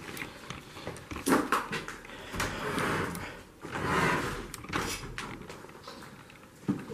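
Scattered knocks and clatters with two longer scraping, rustling noises, in a small echoing room: people moving about and handling things in a derelict building.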